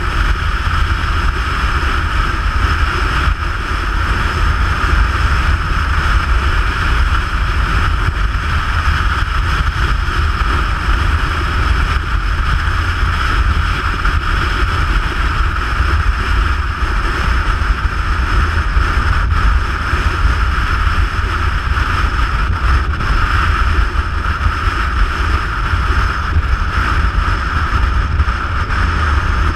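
Steady wind rush over the camera microphone with the low drone of a motorcycle running at road speed, unchanging throughout.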